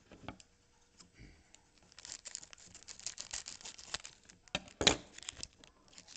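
Foil wrapper of a Topps Chrome baseball card pack being torn open and crinkled by hand: a dense run of crackles from about two seconds in, with the sharpest snaps near five seconds.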